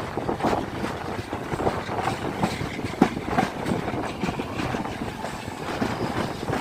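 Yal Devi passenger train running along the track: a steady rumble with the wheels clattering over rail joints in frequent irregular knocks, one sharper knock about three seconds in.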